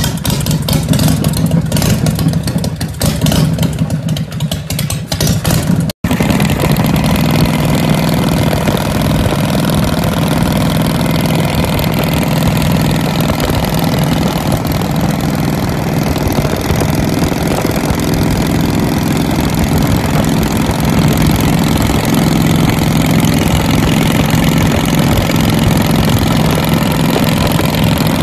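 Custom Harley-Davidson chopper's V-twin engine running. For the first few seconds it is uneven and choppy; after a break about six seconds in, it drones steadily as the bike rides along.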